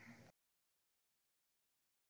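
Silence: a faint trace of room noise for a moment, then the sound cuts out completely.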